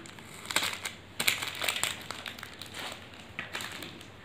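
Clear plastic snack wrapper crinkling and crackling in irregular bursts as it is handled and pulled open by hand.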